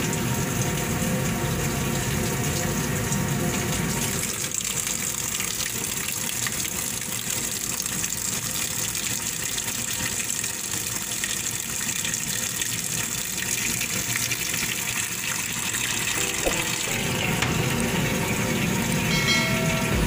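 Water pouring steadily into the tub of a top-loading washing machine (Wowkun XQB60-168G) as it fills at the start of a wash cycle.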